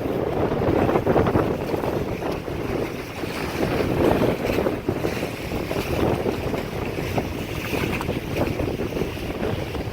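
Gusty wind buffeting the microphone as a low, uneven rumble, with the rush of water beneath it.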